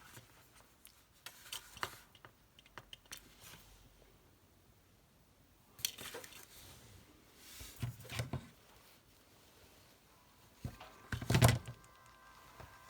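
Scattered light clicks and clinks of a small die-cast toy car and tools being handled on a work surface, with a few louder knocks about six, eight and eleven seconds in. Music starts near the end.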